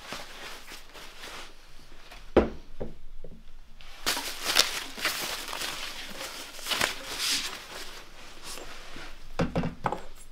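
Thin plastic packaging bag crinkling and rustling as bike handlebars are pulled out of it and unwrapped, with a couple of dull knocks, one a couple of seconds in and one near the end.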